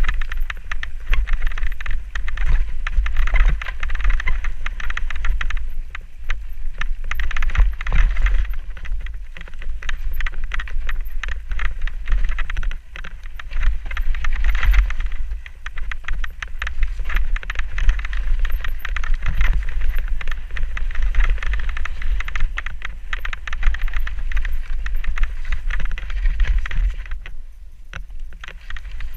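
Mountain bike riding fast down a rough woodland dirt trail: continuous wind buffeting on the camera microphone over the rattle and clatter of the bike and tyres across dirt, leaves and roots. It goes quieter for a moment near the end.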